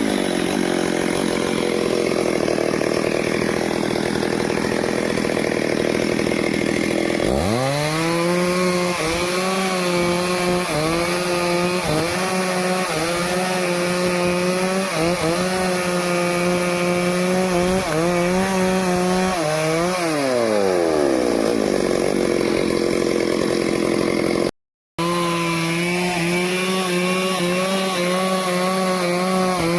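Stihl chainsaw cutting teak wood at full throttle. The engine note rises sharply about a quarter of the way in, holds high with small wavers under load, and drops away about two-thirds through. After a brief cut-out of all sound it revs up again and falls off near the end.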